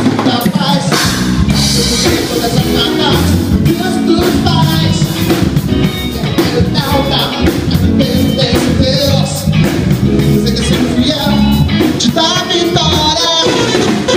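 A band playing with a lead singer over drum kit, bass, electric guitar and keyboard.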